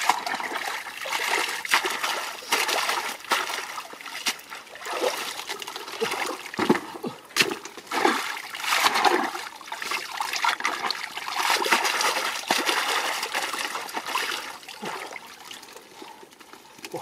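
Hands splashing and groping in shallow muddy water in the bottom of a wooden boat, with trickling and dripping, in irregular bursts that grow quieter near the end.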